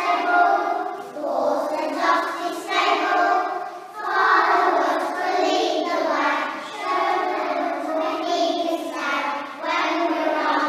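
A group of young children singing a song together in unison, in phrases of about a second with brief breaks between them.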